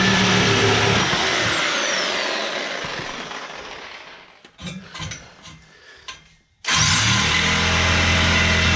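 A motor-driven tool or machine running loud and steady, then spinning down over a few seconds with a falling whine. A few knocks follow, then it starts again about seven seconds in, its whine rising quickly to speed.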